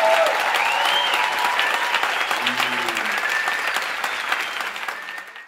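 Theatre audience applauding steadily, with a few high whistles and a brief shout over the clapping; the applause fades out at the end.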